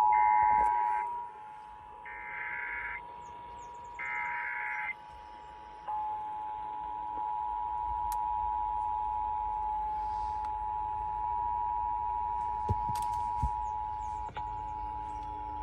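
Emergency Alert System attention signal over AM radio for a Required Monthly Test: the steady two-tone pair drops in level about a second in, then holds. Three one-second squeals of SAME header data come through it at the start, about two seconds apart, and two short knocks sound about thirteen seconds in.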